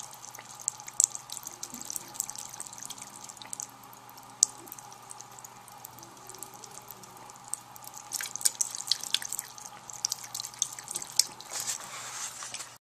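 Thin stream of water running from a bathroom tap into the sink, broken by irregular sharp splashy clicks as a cat laps at the stream, thickest in spells in the latter half, over a steady hum.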